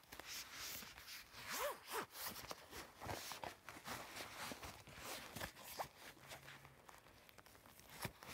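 Black nylon AmazonBasics DSLR camera backpack being handled while a tablet is worked into its front panel: zipper and fabric rustling, with irregular clicks and scrapes, busiest in the first half.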